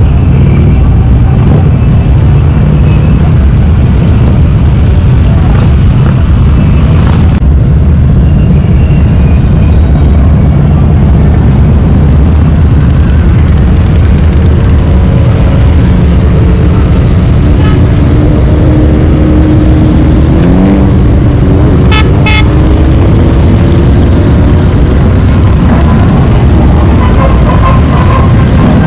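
Loud, steady low rumble of a motor vehicle or road traffic. Short pitched tones, like a horn, come and go about halfway through.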